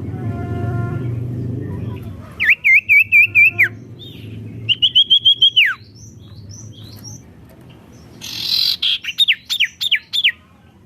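A sirtu songbird singing loud, repeated phrases: three runs of five or six quick looping whistles each, the last run made of sharply falling notes. A low rumble underlies the first two seconds.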